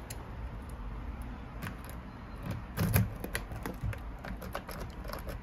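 Keys on a keyring rattling and a key being fitted and worked in a door lock: a run of small, irregular metallic clicks and scrapes, loudest about three seconds in.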